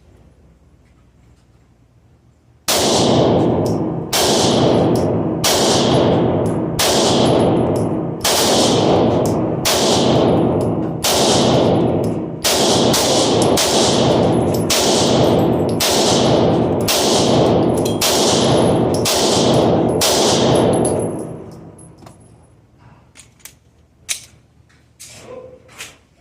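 Glock 19 Gen 3 9mm pistol firing a slow, steady string of shots, about one a second, each with a ringing tail. The string starts nearly three seconds in and stops about 21 seconds in: a 15-round magazine fired for an accuracy and grouping test.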